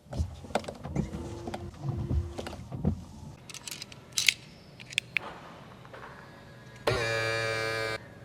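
Mercedes-Benz A200L being operated: a run of clicks and knocks from its doors and controls, then a steady buzzing tone for about a second near the end.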